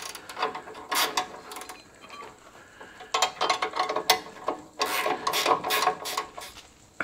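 Hand ratchet clicking in three bursts of quick strokes as a nut is tightened onto the rose-joint bolt of a sway bar link, with a spanner holding the bolt head.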